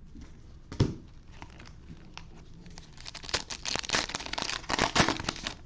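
Plastic cello-pack wrapper of trading cards crinkling as it is torn open, in a dense run of crackles through the second half. A single sharp knock comes about a second in.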